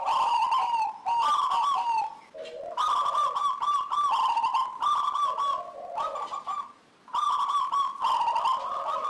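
Local zebra dove (perkutut) singing its cooing song: phrases of quick, rippling coos, each about a second long, repeated with short breaks, some dropping to lower notes at the end.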